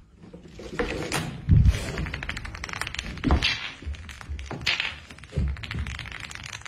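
Wooden dominoes toppling one after another in a chain, a fast run of small clicks and clacks, with a few heavier thuds along the way.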